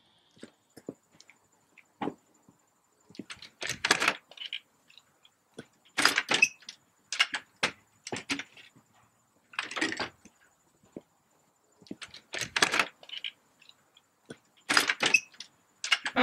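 Wooden patio chairs and table being moved and handled: irregular knocks and short scrapes, some in quick clusters.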